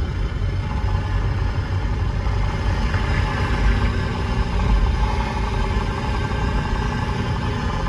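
A steady low rumble like a running vehicle.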